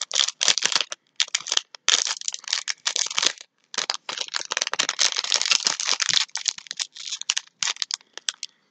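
Plastic snack packaging crinkling as it is handled, in irregular bursts of crackle with short pauses, growing sparser near the end.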